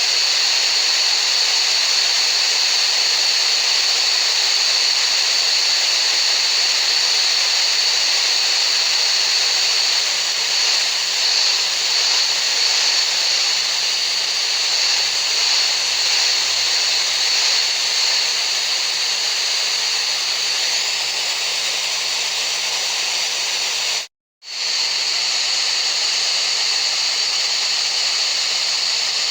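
Steady hiss of tinnitus-masking noise, strongest in a narrow high band. It cuts out completely for a split second about 24 seconds in.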